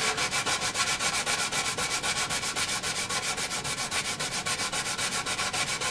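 Sandpaper rubbed by hand along a maple cabinet's thin veneer edge in rapid, even back-and-forth strokes.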